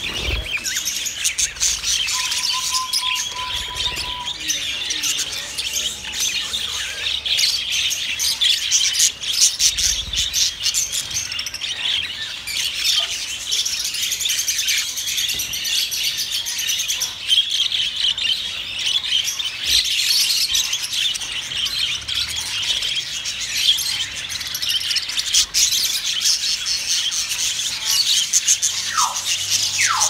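A crowd of caged budgerigars chattering and chirping nonstop, a dense high twittering with no pauses. A short, steady whistle-like tone stands out about two seconds in.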